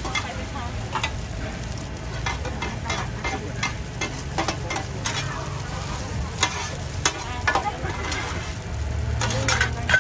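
Egg and mussel batter sizzling and frying in hot oil on a large flat wok. Metal spatulas scrape and clink against the pan many times as the pancake is pushed and turned.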